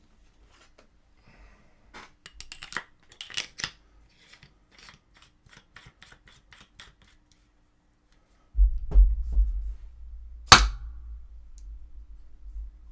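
Nova N4 Odin paintball marker handled with a run of clicks and rattles, then low handling bumps and one sharp, loud pop about ten and a half seconds in as it fires on a little remaining air. It is a closed-bolt marker.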